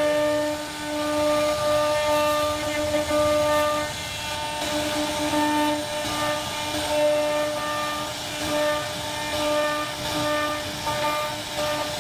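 CNC router spindle whining at a steady high pitch while its bit carves a relief pattern into a wooden panel, the sound swelling and easing every second or two as the cutter's load changes.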